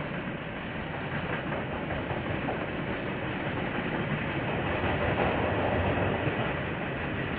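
KiwiRail train rolling past on the rails, its wagons rattling by in a steady run that swells a little about five seconds in. Picked up by a security camera's microphone.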